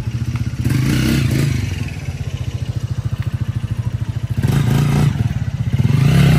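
Motorcycle engine running close by with a rapid, even putter, revved up briefly about a second in and again for about two seconds from four and a half seconds in.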